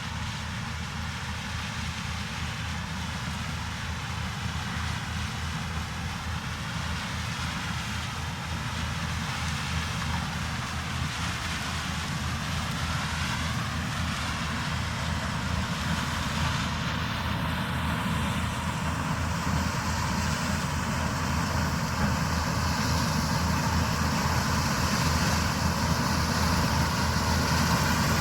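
Farm machinery engine running steadily under work, growing gradually louder as it comes closer.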